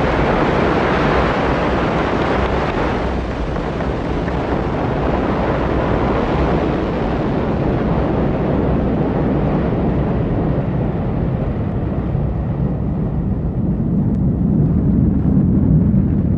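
Ariane 5 rocket's solid boosters and main engine at liftoff and climb: a loud, steady rumbling noise whose higher sounds fade away gradually as the rocket rises and recedes.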